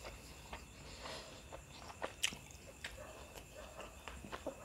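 Close-up mouth sounds of a man chewing devilled chicken and rice, with a series of sharp wet clicks. The loudest click comes a little over two seconds in.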